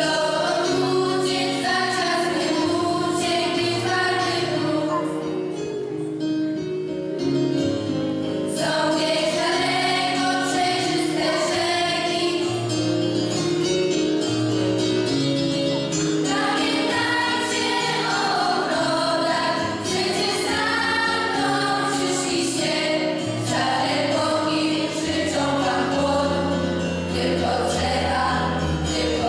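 Group of girls' voices singing together as a choir, with steady instrumental accompaniment underneath.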